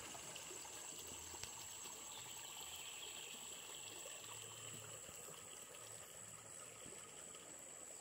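Faint outdoor ambience: an even, quiet hiss with a thin, steady high-pitched drone of insects throughout.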